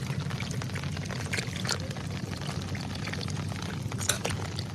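Water pouring and splashing, with scattered small splashes over a steady low hum.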